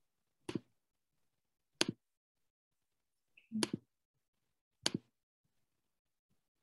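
Four sharp single clicks, one to two seconds apart, from someone operating a computer, mouse-clicking through menus to start a screen share.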